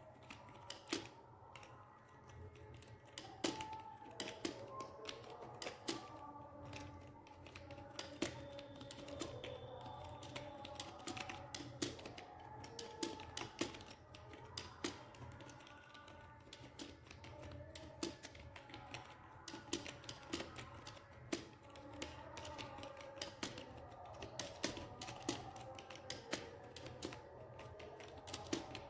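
Computer keyboard being typed on quickly and without a break: a dense, irregular run of key clicks with louder keystrokes standing out here and there.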